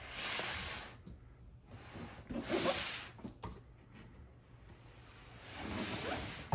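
A large cardboard box scraping and rustling as it is turned on a hardwood floor, in three short strokes: at the start, in the middle and near the end.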